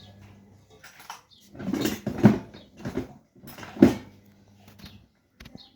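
Irregular handling noises: several short scraping, rustling bursts, the loudest about two and four seconds in, over a faint steady electrical hum.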